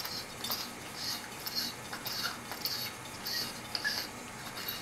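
Disposable oxygen canister being screwed by hand into the brass regulator fitting of a Smith Little Torch: a quick series of short scratchy rasps with small clicks, about two to three a second, as the threads turn.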